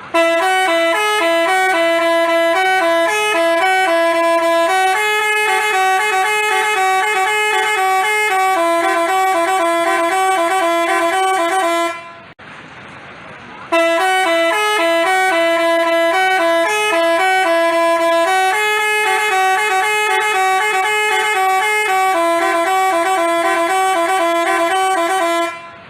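Telolet Basuri multi-tone bus horn playing a fast melody of short notes. It plays the tune twice, with a break of about a second and a half near the middle.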